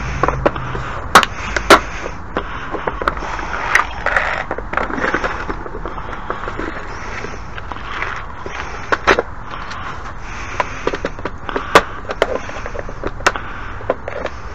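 Screws and small hardware being handled and sorted through: irregular sharp clicks and clacks over a low scraping noise.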